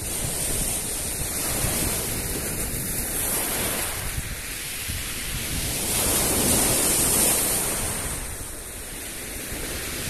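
Black Sea surf: waves breaking and washing up at the water's edge, the noise swelling to its loudest about six to seven seconds in as a wave breaks close by.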